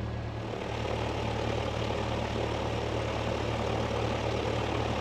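Single-engine Cessna's piston engine and propeller idling steadily while holding short of the runway, a low, even drone.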